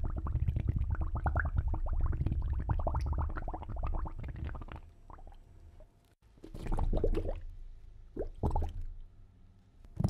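Underwater bubbling and gurgling sound effect: a dense stream of small bubbles over a low rumble that fades out about five seconds in, then a few separate bubbly bursts.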